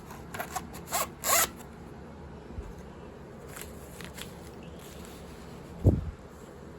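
A VHS cassette and its plastic case being handled: a few quick scraping rustles, some faint clicks, then one dull thud near the end as something is set down.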